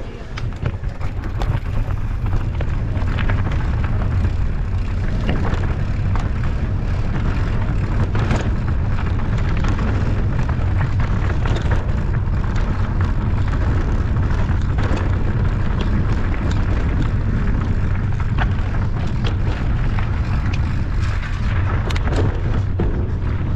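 Wind rumbling on the microphone of a mountain bike rider's camera at speed, with scattered knocks and rattles from the bike over rough ground. It grows louder over the first couple of seconds, then holds steady.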